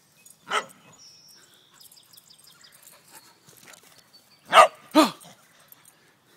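Dog barking in play: one bark about half a second in, then two sharp barks in quick succession about four and a half seconds in.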